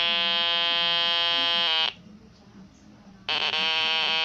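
Buzzy electronic tone from a children's push-button toy, held steady and cutting off after about two seconds. A second buzzy tone starts after a pause of about a second and a half and holds.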